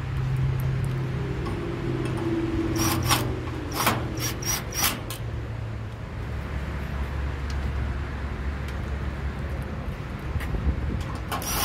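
Sheet-metal dryer panels and parts being handled and fitted back together: a quick run of sharp clicks and knocks about three to five seconds in, and another knock near the end, over a steady low hum.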